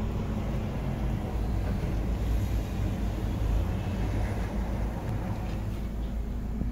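Car engine idling: a steady low rumble heard from inside the cabin.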